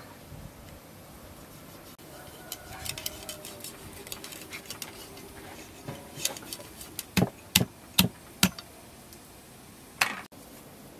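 Large kitchen knife cutting and scraping through raw fish along the rib bones on a wooden cutting board, with small clicks. A little past the middle come several sharp knocks about half a second apart as the blade strikes the board, and one more knock near the end.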